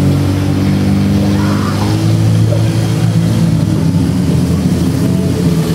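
Motor of a large wheeled metal fish-shaped art vehicle running steadily as it rolls along a street, with a slight change in its pitch about two seconds in.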